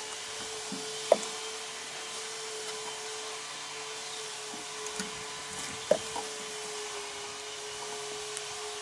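A few sharp knocks and clicks as a hand expander is stretched and worked onto the front suspension, with the loudest about a second in and two close together around six seconds in. A steady hum runs under them.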